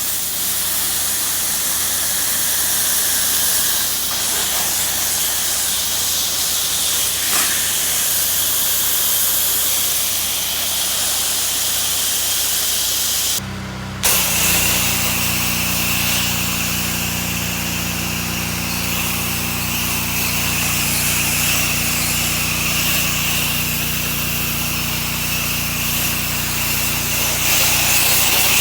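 Pressure washer spraying house siding: a loud, steady hiss of the water jet with an engine hum underneath. The spray drops out for a moment about halfway, then starts again, and the engine hum is plainer in the second half.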